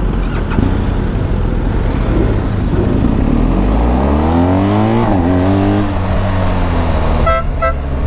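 BMW GS motorcycle engine pulling away and accelerating, its pitch rising for a couple of seconds, then dropping at an upshift about five seconds in and running on steadily. Two short horn beeps near the end.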